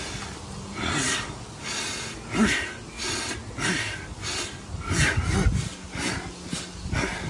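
A fighter's short, sharp breaths out, about one to two a second, each timed with a punch while shadowboxing.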